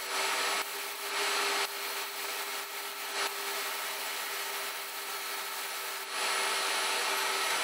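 HVLP gravity-feed spray gun (DeVilbiss Tekna ProLite, 1.4 fluid tip, about 25 psi) hissing as it sprays a coat of black-tinted 2K polyurethane primer, louder in stretches, over a faint steady hum.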